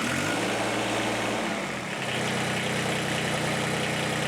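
Kubota BX25 compact tractor's three-cylinder diesel engine running just after it has caught. Its pitch rises and falls over the first two seconds, then it settles into a steady idle. The engine has a hard-start fault, traced to a faulty fuel shut-off solenoid.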